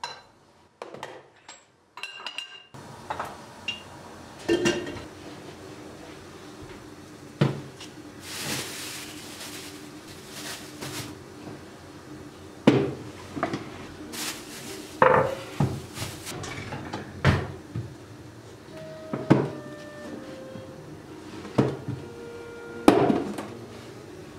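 Kitchen handling sounds: a metal spoon clinking in a porcelain teapot, then plastic food boxes and their lids knocked down on the countertop, with a string of sharp knocks through the whole stretch and a plastic bag rustling for a few seconds near the middle.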